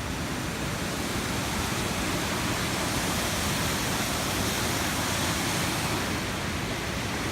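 Waterfall rushing: a steady, loud wash of falling water with no break or change in pitch, growing slightly louder about two seconds in.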